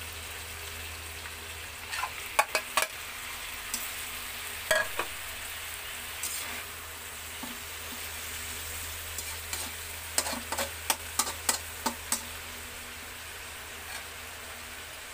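Chicken and sliced tomatoes sizzling steadily in a metal wok, with a metal spatula scraping and clinking against the pan in clusters about two seconds in and again around ten to twelve seconds in.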